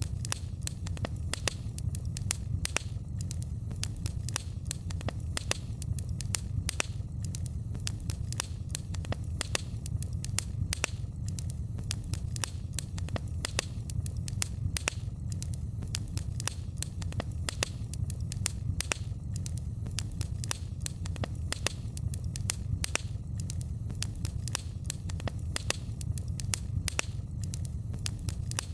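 Wood fire in a fireplace crackling: many irregular sharp pops and snaps over a steady low rumble of the flames.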